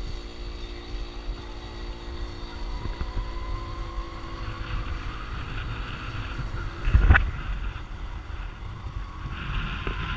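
Honda motorcycle being ridden, with its engine running under heavy wind buffeting on the microphone. There is one loud thump about seven seconds in.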